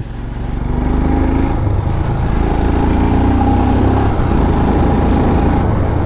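Motorcycle engine running steadily while riding, with wind and road noise over it.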